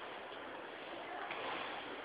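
Underground subway platform ambience: a steady wash of background noise with no distinct event.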